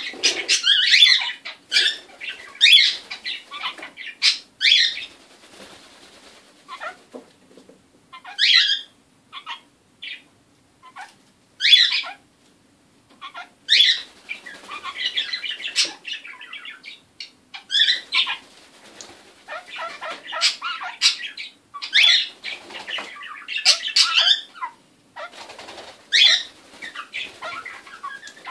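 Kakariki parrot making weird calls in short, irregular bursts, some clustered together and some a few seconds apart.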